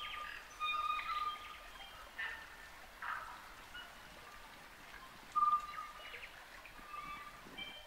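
Forest birds singing: clear whistled notes and short calls overlapping, loudest about a second in and again near the middle, over the faint rush of a shallow river.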